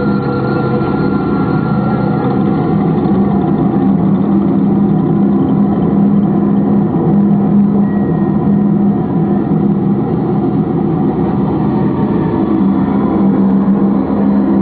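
A loud, steady, engine-like drone with a strong low hum, unbroken throughout.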